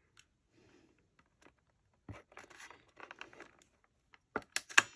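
Paper bag faintly rustling as it is handled, then a quick run of sharp clicks near the end as a Crop-a-Dile hand punch is squeezed through the paper to punch a hole.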